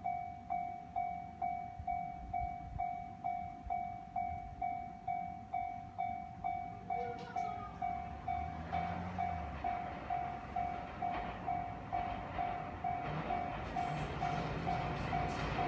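Japanese railway level-crossing alarm ringing steadily at about two strikes a second, warning of an approaching train. From about halfway through, the noise of a JR West 207 series electric train drawing near swells beneath the bell and keeps getting louder.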